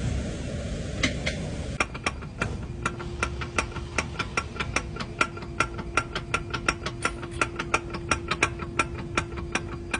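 Sharp, regular clicking at about four clicks a second, starting about two seconds in, with a steady hum joining about a second later.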